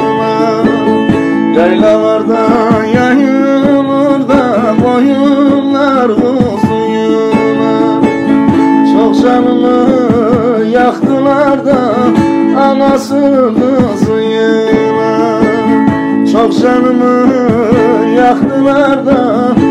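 Bağlama (long-necked Turkish saz) played with a plectrum: a quick, busy folk melody of plucked notes over steadily ringing drone strings.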